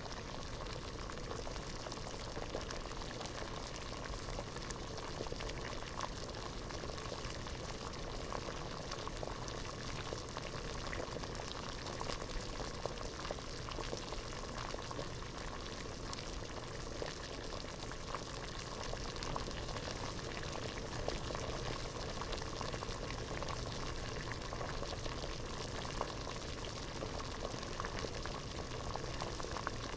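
Water boiling hard in a pot: a steady dense bubbling made of many small pops.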